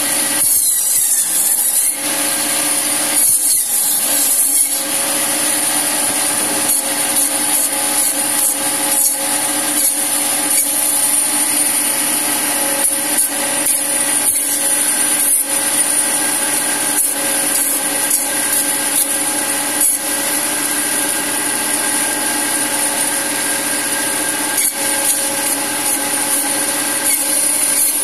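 La Minerva meat band saw running steadily and cutting mutton on the bone into pieces: a constant motor hum with a high whine from the blade, broken by frequent short ticks and knocks as the blade meets bone and the pieces are pushed across the steel table.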